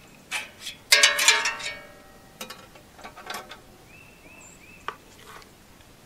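Hands working at a small engine's dipstick tube, the dipstick and suction-kit tubing handled: a few clicks, then a brief rattling metallic clatter about a second in, followed by scattered lighter clicks.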